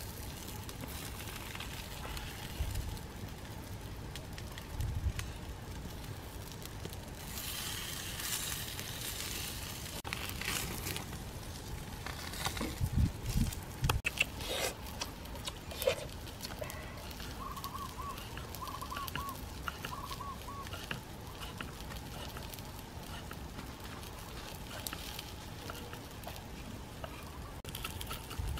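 Wood fire crackling under a flat stone slab with fish cooking on it, with scattered light knocks as the fish are moved about with bamboo sticks. A few short bird calls come about two-thirds of the way through.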